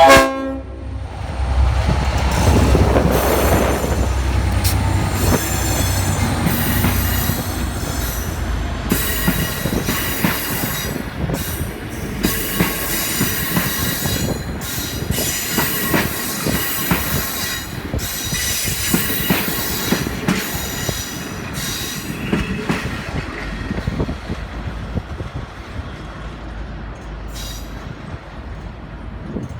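The Leslie RS5T horn on a V/Line N-class locomotive cuts off just at the start. Then the departing passenger train's wheels roll over the rails, with squealing and repeated clicks over the rail joints, slowly fading toward the end.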